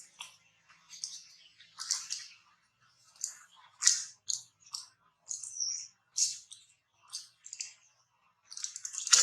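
Crisp crunching in a dozen or so short, irregular bursts, the kind of sound made by something being bitten and chewed.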